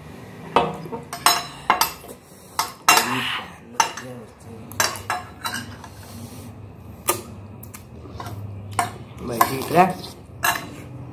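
Cutlery clinking and scraping on plates as noodles are eaten fast, in short irregular clatters. A brief vocal sound comes near the end.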